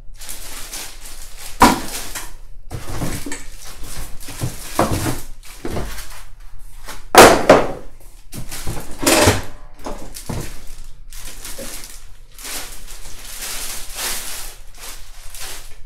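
Plastic packaging bags crinkling and rustling as high chair parts are handled and pulled out of a cardboard box, with thuds as pieces knock against the box. The loudest thuds come about one and a half and seven seconds in.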